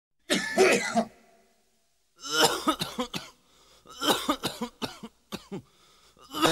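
Coughing and throat clearing in three short bouts, each about a second long, followed by a couple of brief clicks.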